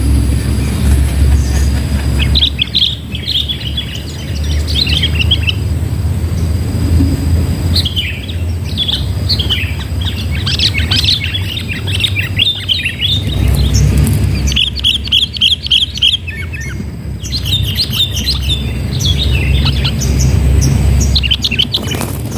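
Sooty-headed bulbuls calling: bursts of quick chattering, bubbly phrases repeated throughout, over a steady low rumble.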